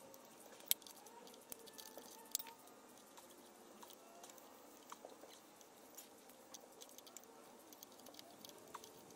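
Quiet handling noise of hands greasing and fitting the clutch release mechanism in a Triumph Stag gearbox bellhousing: faint small clicks and rubbing, with two sharper clicks a little under a second and about two and a half seconds in.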